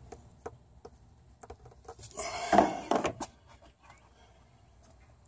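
Light clicks and clinks of a metal oil cooler being handled and seated against the engine block, with a louder rubbing, scraping burst lasting about a second, two seconds in.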